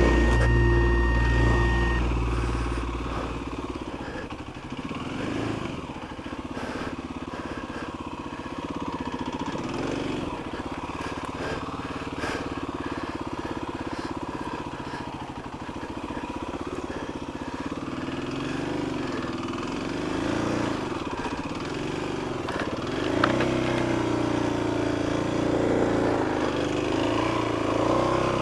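Music fades out over the first few seconds. Then a Kawasaki KLX250's single-cylinder engine runs at varying revs, its note rising and falling with the throttle.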